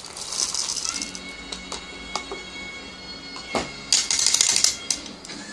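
Coffee beans rattling as they are poured from a paper cup into the hopper of a Pharos hand burr grinder, with a louder burst of rattling about four seconds in. Background music with long held notes plays throughout.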